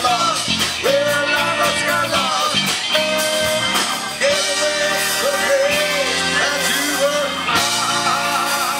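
A live rock band playing, with a singer, trumpet, saxophone and electric guitar. Near the end the sound changes abruptly.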